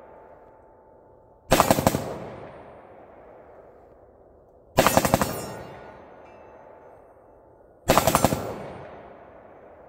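A 5.56/.223 rifle fired in three quick strings of rapid shots, each a triple tap, about three seconds apart. Each string is followed by a long fading echo, with a faint ring from steel targets being hit.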